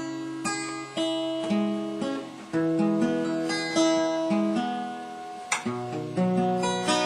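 Acoustic guitar playing an instrumental introduction: single plucked notes picked one after another, roughly two a second, each ringing and fading, with a strummed chord a little past halfway.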